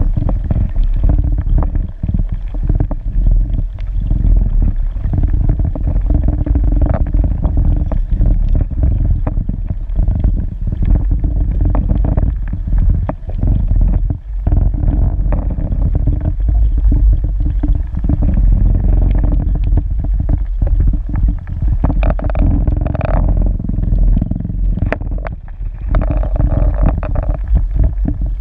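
Underwater noise picked up through a submerged camera: a constant low rumble with a steady hum and many scattered clicks and knocks.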